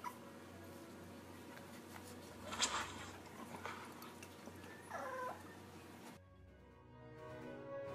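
A cat gives one short meow about five seconds in, after a brief breathy burst near the three-second mark. Background music starts about six seconds in.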